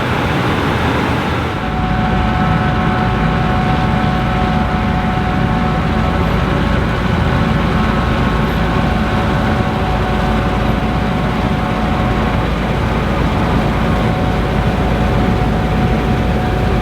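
Gleaner combine harvester running steadily while harvesting wheat: a deep drone with a steady whine over it. The sound shifts about a second and a half in, with the low drone and the whine setting in.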